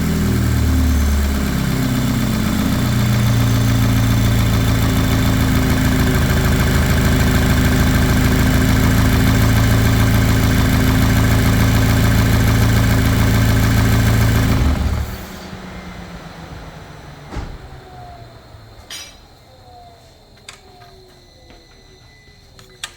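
Volkswagen EA888 turbocharged four-cylinder engine settling down from a rev into a steady idle, then switched off about fifteen seconds in; faint ticks follow. The owner takes the engine's noise for piston slap.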